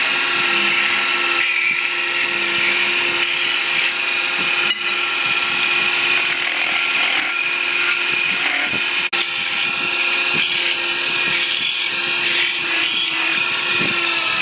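A power tool or machining motor running with a steady whine, broken briefly about five and nine seconds in.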